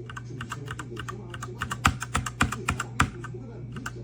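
Typing on a 60% mechanical gaming keyboard: a rapid run of key clicks, about five or six a second, with a few heavier, louder strokes in the middle, over a steady low hum.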